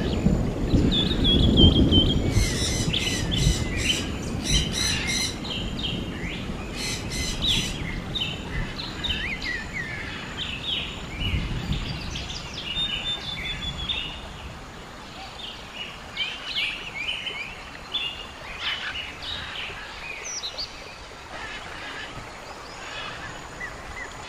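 Wild birds singing and chirping, several at once, with rapid trills in the first several seconds and scattered short chirps after. A low rumble underneath fades away within the first few seconds.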